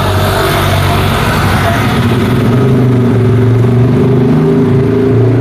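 Street traffic: a motor vehicle engine running close by with a steady low hum that grows a little louder about two seconds in, over a haze of road noise.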